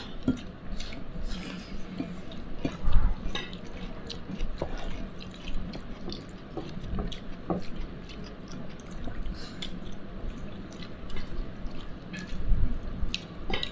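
Close-up wet eating sounds: scattered small clicks and squishes from fingers mixing rice and chicken on a plate and from chewing, with a couple of soft thumps.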